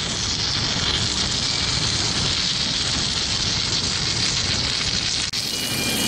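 Steady crackling hiss of automatic submerged-arc welding cladding a steel roll under a bed of flux. A little over five seconds in it cuts to a different steady noise with a few faint high whining tones, where a gas torch flame is heating the roll.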